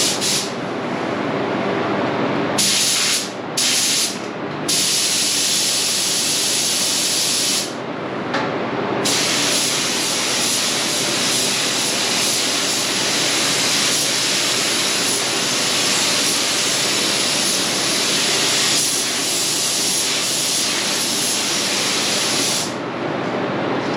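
Compressed-air paint spray gun spraying in long passes: a loud, steady hiss, broken by several short gaps where the trigger is let off, most of them in the first nine seconds and one near the end.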